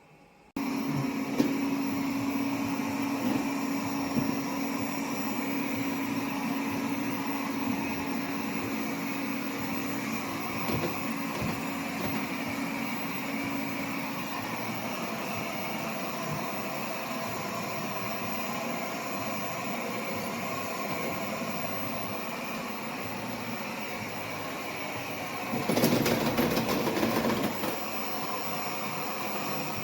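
Airzeen R7 robot vacuum running, a steady whirr of its suction motor and brushes that starts abruptly about half a second in. A steady hum in it fades out about halfway through, and near the end the sound gets louder and noisier for about two seconds.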